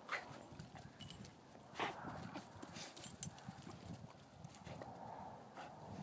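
Soft, irregular thumps and rustling of footfalls on dry grass, with a few sharper clicks.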